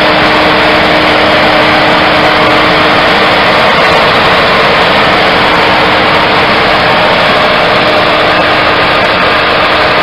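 Heavy farm machinery engines running steadily under load: a tracked tractor is towing a combine harvester that is bogged in mud. A steady hum sits over a loud, even rush of noise.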